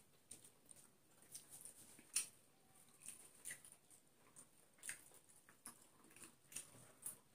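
Faint eating sounds: chewing, with scattered soft clicks and ticks from fingers mixing rice and chicken on plates, the sharpest about two seconds in.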